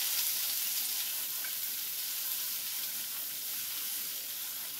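Sauce-coated chicken nuggets and green onion sizzling in a frying pan over a gas flame as the pan is tossed: a steady hiss.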